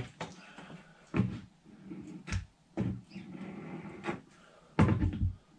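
Irregular knocks and clunks of wood being handled while a plywood drawer box is hot-glued: a sharp knock about a second in, a few more, and a heavier, louder thump near the end.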